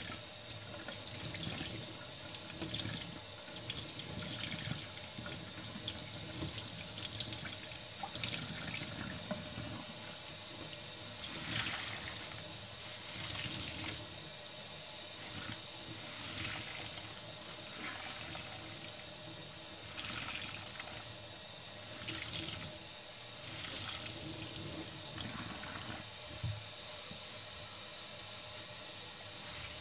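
Tap water running into a stainless steel sink while wet sponges are squeezed and rinsed under the stream, a wet squish every second or two.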